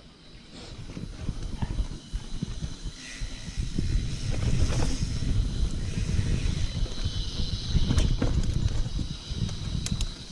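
Carbon Niner Jet mountain bike ridden along a dirt singletrack: a steady low rumble of tyres and wind on the microphone, with scattered clicks and knocks as the bike rattles over roots and bumps.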